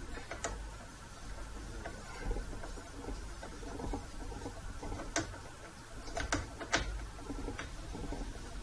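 Small hand tools and plastic saw-housing parts being handled during reassembly: scattered light clicks and taps, a few sharp ones in the second half, over a low rumble.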